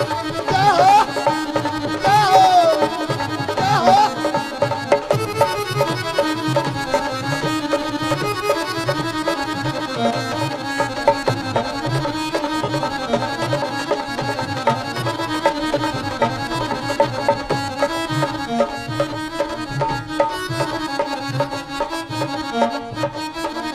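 Instrumental passage of Punjabi devotional folk music: a harmonium plays the melody over a steady, even hand-drum beat. A held, wavering sung note trails through the first few seconds before the instruments carry on alone.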